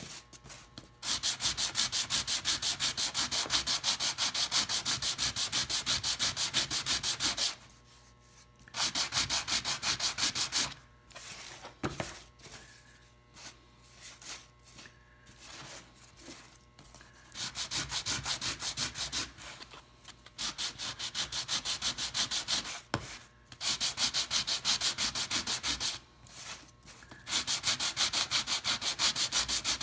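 Hand sanding: sandpaper wrapped on a small wooden block rubbed quickly back and forth over a thin piece of wood. It comes in several long runs of rapid strokes, with a quieter spell of lighter, broken rubbing in the middle.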